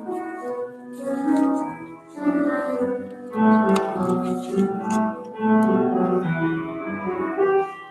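Instrumental music on an organ: held chords and a melody line, the notes changing about every half second.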